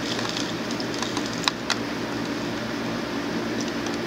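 Steady low hum of room noise, with two short clicks about a second and a half in.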